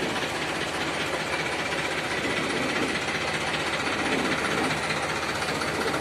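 Four-wheel tractor's engine idling steadily.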